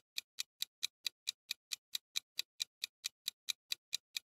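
Countdown timer sound effect: a clock ticking evenly, about four and a half ticks a second, marking the time left to answer.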